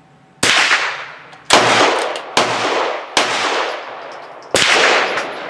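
Five sharp gunshots about a second apart, each trailing off in a long echo.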